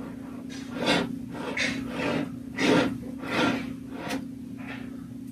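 Jute twine being wound by hand around a glass vase: a run of short rubbing scrapes, about one every half to three-quarters of a second, with a single sharp click about four seconds in.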